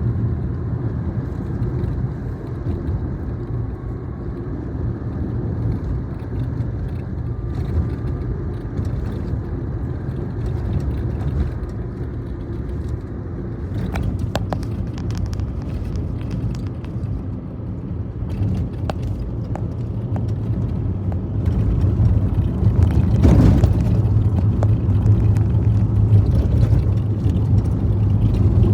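Steady road and engine rumble inside a moving Tata Tiago's cabin, broken by scattered light clicks and rattles, bunched about halfway through and again about two-thirds through. This is the dashboard rattle that the service centre has not been able to cure.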